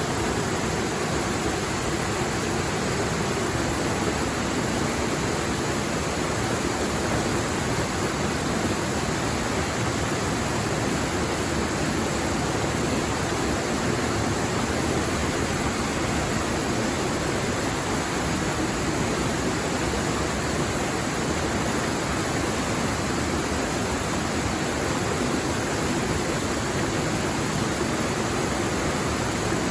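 Water from a small waterfall on a clear stream, rushing steadily and evenly.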